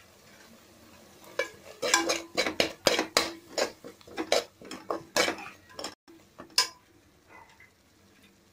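A steel spoon stirring a thick frying masala paste in an aluminium pressure-cooker pan, scraping and knocking against the metal a few times a second. The stirring starts about a second and a half in and stops a little after two-thirds of the way through.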